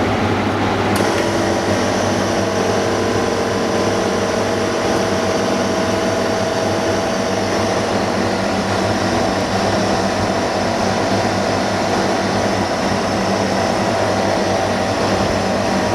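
Steady hum and rushing-air whir of a running electric machine, getting brighter after a short click about a second in.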